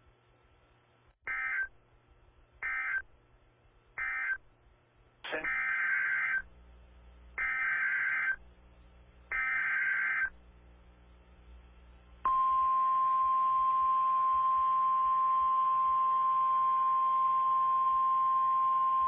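NOAA Weather Radio Emergency Alert System data bursts: three short, buzzy digital chirps of the SAME end-of-message code, then three longer SAME header bursts. About two seconds after the last burst, the steady, high single-tone warning alarm starts and holds without a break, announcing a new warning.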